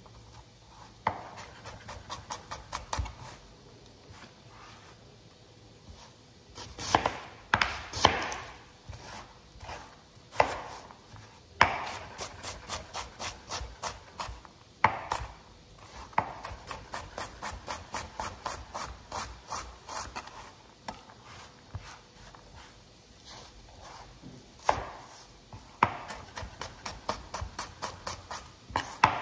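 Chef's knife dicing an onion on a cutting board: runs of rapid, even knife taps, about five a second, broken by short pauses and a few louder single strokes.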